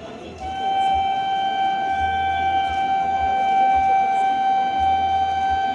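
Approaching suburban local train sounding its horn in one long, steady blast, starting about half a second in and breaking off just before the end.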